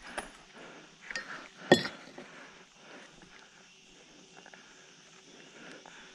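A few light knocks, then one sharp metallic clink with a brief ring about two seconds in.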